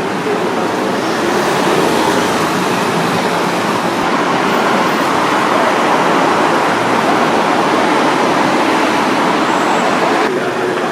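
Steady road traffic noise, an even wash of passing vehicles with no single engine or horn standing out.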